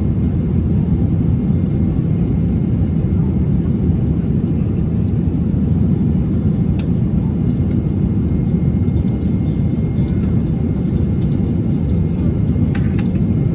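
Steady cabin noise of a Boeing 777-200ER in flight: an even low rumble of engines and airflow, with a few faint clicks.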